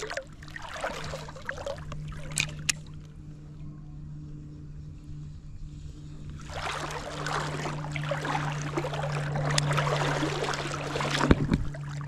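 Shallow creek water sloshing and trickling, louder in the second half, over a low steady hum. A couple of light clicks come a few seconds in, and a sharp knock near the end.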